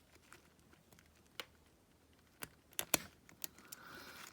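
Scattered small metallic clicks of circlip pliers working a small circlip onto a gear shaft: one click, then a quick run of them, loudest about three seconds in.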